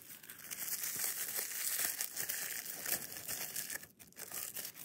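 White wrapping paper crinkling and rustling as it is unwrapped by hand from a miniature brass jug, with a brief pause about four seconds in.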